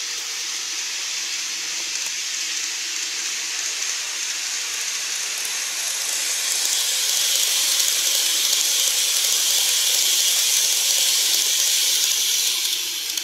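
Model Keikyu 2100 series train running on the layout's track: a steady hissing whir of motor and wheels that grows louder about halfway through as the train passes, then drops away sharply near the end.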